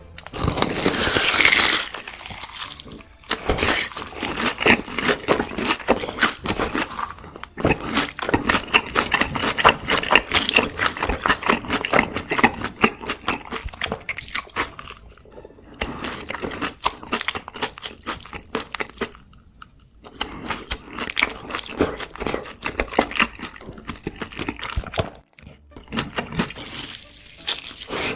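Close-miked ASMR eating: crunchy bites and chewing, a dense crackle of clicks coming in stretches with short pauses between.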